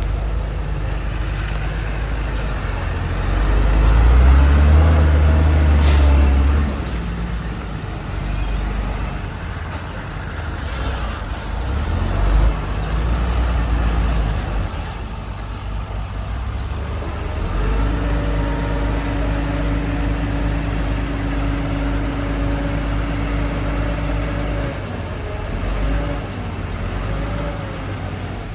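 Heavy diesel engines of a bulldozer and dump truck running: the engine revs up and grows louder a few seconds in, a brief sharp sound comes near the six-second mark, and it later settles into a steady drone at higher revs for several seconds before easing off.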